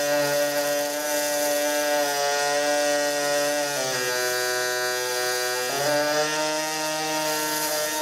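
Pulse MIG welding arc on thin aluminum, buzzing steadily at the machine's pulse rate. The buzz drops in pitch about four seconds in and steps back up about two seconds later, as the synergic settings are turned down and back up.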